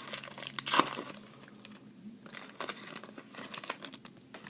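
Foil trading-card pack wrapper being crinkled and torn open, with a loud rip a little under a second in, followed by lighter crinkling as it is handled.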